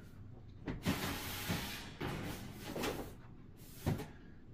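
Plastic reptile tub being slid into a rack shelf: knocks as it meets the shelf, then a scraping slide, with another knock near the end.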